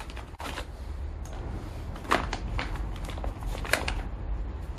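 Small metal tools and parts clinking and clattering as they are tipped out of a stiff plastic zip bag onto a rubber mat, with the bag's plastic crinkling as it is handled. The loudest clicks come about two seconds in and again near the end.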